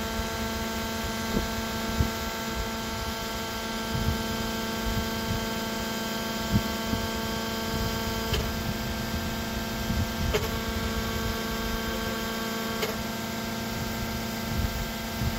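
A steady pitched hum with a ladder of overtones, over a low rumble, with a few light knocks.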